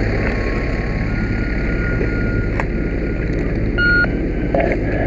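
Steady engine rumble, with a short electronic beep about four seconds in.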